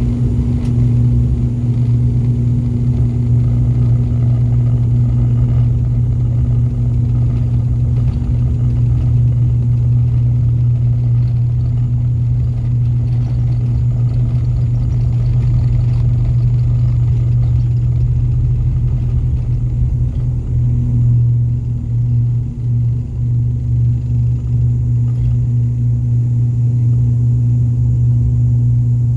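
Loud, steady drone of an ATR 72-600's turboprop engines and six-bladed propellers at takeoff power, heard from inside the cabin. A deep propeller hum sits under the rumble of the takeoff roll and the lift-off into the climb.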